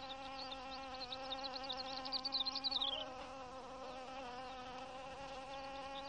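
Wings of a long-tongued hoverfly in flight, a steady buzzing hum. A run of quick high chirps sounds over it in the first half and falls away about three seconds in.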